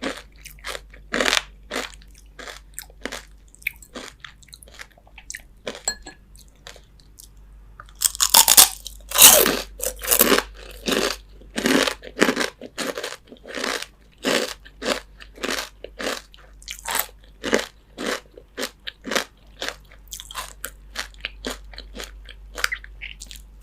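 Crisp fried chicken skin being bitten and chewed close to the microphone: a steady run of crunches about two a second, louder from about eight seconds in.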